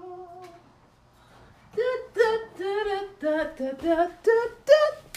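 A woman's voice singing a wordless la-di-da tune. A held note fades, and after a brief pause comes a quick run of short notes.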